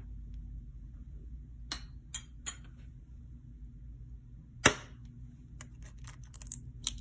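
An egg rapped once sharply against the rim of a stainless steel mixing bowl, followed by a quick run of small crackles as the shell is pulled apart. A few light clicks of a plastic spoon against the bowl come first, over a steady low hum.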